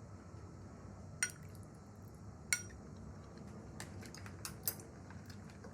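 Eating utensils clinking against a dish: two sharp, ringing clinks about a second apart, then a cluster of lighter clicks, over a low steady hum.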